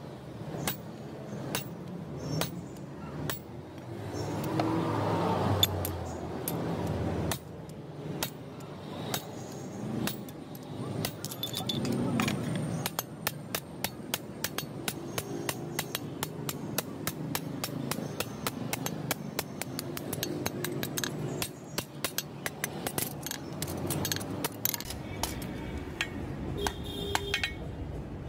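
Hammer blows on red-hot leaf-spring steel on an anvil while a billhook blade is forged: sharp metallic strikes, spaced out at first, then a quick run of about three or four a second from about halfway through.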